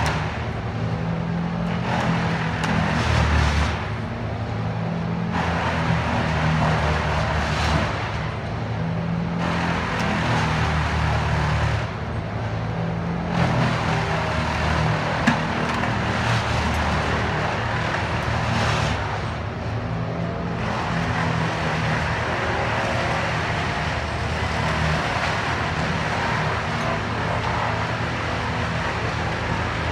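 A crane's engine running steadily, with a broad rushing hiss that surges and falls away every few seconds.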